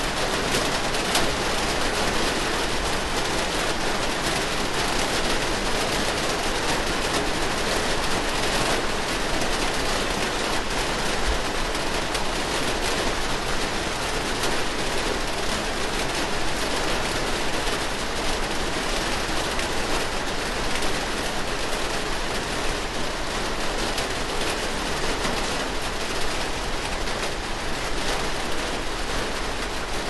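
Steady rain: a dense, even patter of countless small drop hits.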